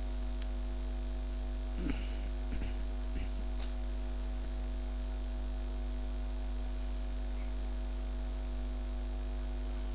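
Steady electrical mains hum, made of several held tones, with a fast, faint, high-pitched ticking over it. A few faint soft knocks come between about two and three and a half seconds in.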